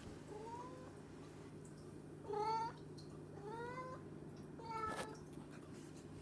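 Domestic cat meowing four times, each meow rising in pitch, the second the loudest. It is part of a spell of constant meowing that the owner says the cat cannot control.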